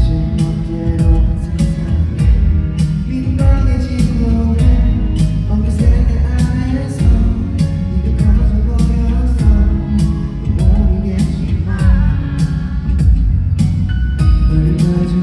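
Live pop ballad played over a concert PA: male voices singing over a band with a steady beat.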